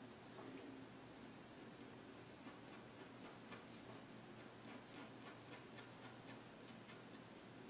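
Faint, quick ticks of a fine-tip ink pen flicking short hair strokes onto paper, a few at first, then about three or four a second from a couple of seconds in.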